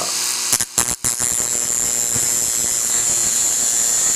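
Dremel rotary tool running at high speed with a steady high-pitched whine, grinding the tip of a twist drill bit to sharpen it. The sound drops out briefly a couple of times just under a second in, then runs on steadily.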